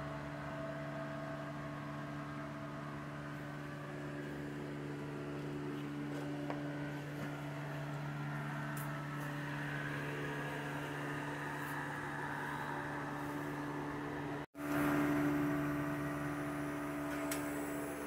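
A steady machine hum with a low pitch and its overtones, like a shop fan or electric motor running. It cuts out for an instant about fourteen seconds in and comes back slightly louder, with a few faint clicks near the end.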